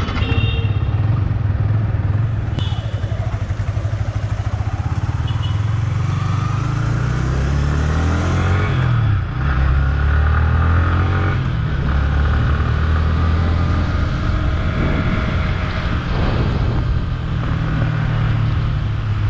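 Yamaha R15's single-cylinder engine pulling away and riding on, its pitch climbing and dropping back a few times around the middle as it accelerates through the gears, with wind noise over it.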